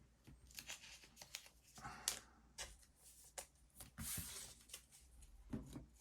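Faint rustling and light clicks of trading cards and pack wrappers being handled.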